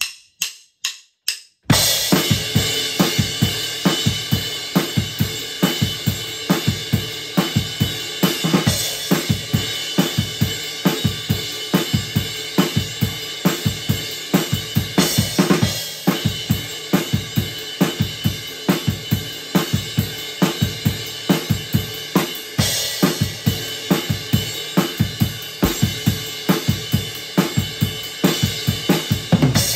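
Four count-in clicks, then an acoustic drum kit playing a steady groove of kick, snare and hi-hat, with crash cymbal accents every few bars, recorded in a studio take.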